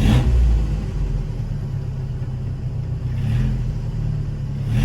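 Datsun 510's L16 four-cylinder on Solex carburettors running under load with a steady low rumble, its note swelling briefly at the start, about three seconds in, and near the end. It pulls without stumbling or shaking, the carburettor trouble apparently sorted.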